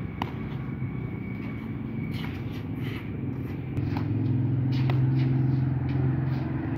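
Motorcycle engine idling with a steady low hum that grows louder about four seconds in. A few sharp clicks of a racquet hitting a shuttlecock come through it.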